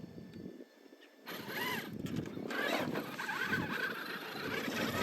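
Axial SCX6 RC crawler's electric motor and geared drivetrain whining under throttle, starting about a second in, the pitch rising and falling as the truck works its way up a dirt slope.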